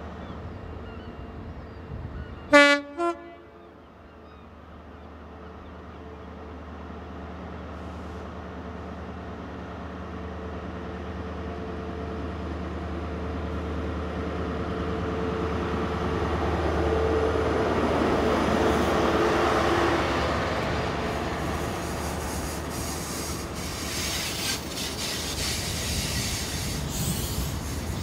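A class 43 HST diesel power car sounds two short horn blasts about two and a half seconds in. Its engine drone then grows steadily louder as the train runs in, and toward the end gives way to the rattling clatter of train wheels passing close by.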